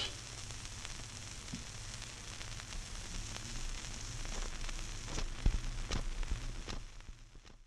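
Surface noise of a 78 rpm shellac record played on a Garrard turntable once the music has ended: steady hiss and crackle with a low hum as the stylus runs in toward the label. A few louder clicks come in the second half, and the noise fades out near the end.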